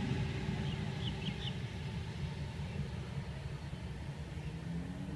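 Low, steady rumble of Sydney electric suburban trains: a Tangara set pulling away, then an approaching Waratah set whose traction motors give a faint rising whine near the end.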